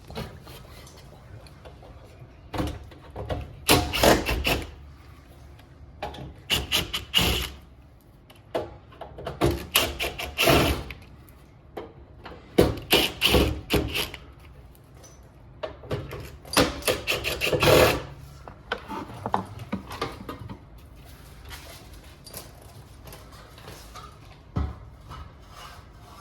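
Clatter of hard parts being handled: several bursts of quick knocks and scrapes a few seconds apart, the loudest around the middle, and one lone knock near the end.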